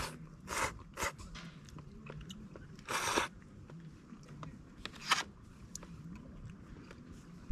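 A person chewing crunchy food close to the microphone: a few crisp crunches, the longest about three seconds in, with quieter chewing between them.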